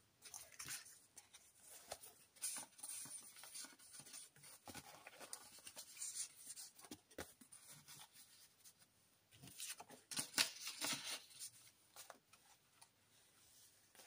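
Soft paper rustling and small taps as the pages and tags of a handmade junk journal are turned and handled, with a few louder swishes of a page turning.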